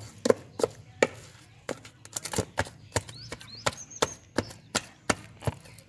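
Wooden pestle pounding minced herring paste in a metal pot: a steady run of dull knocks, about three a second, as the raw fish is worked into fish-cake paste.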